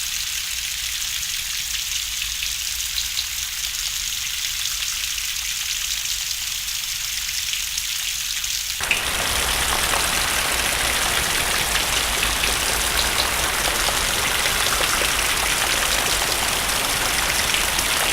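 Steady hissing noise with a fine crackle, mostly high-pitched. About nine seconds in it switches abruptly to a fuller, slightly louder rushing noise that reaches lower down.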